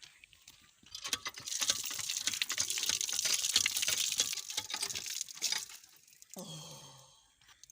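Running water gushing and splashing for about five seconds, then stopping. A brief voiced sound follows near the end.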